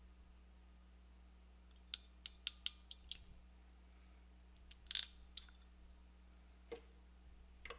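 Sharp clicks from a small hand tool working on a Dupont connector pin: a quick run of about six about two seconds in, a cluster a little later, then single clicks near the end, over a faint steady hum.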